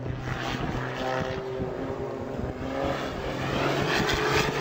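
Small propeller plane's engine droning steadily, growing louder near the end.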